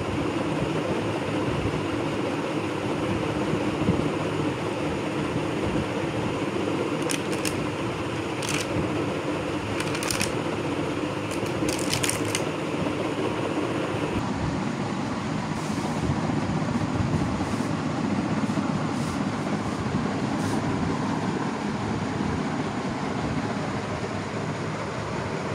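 A steady rushing background noise whose tone shifts about fourteen seconds in, with a few short, faint crackles from the clear plastic blister tray as squishy steamed-bun toys are pressed into its cups.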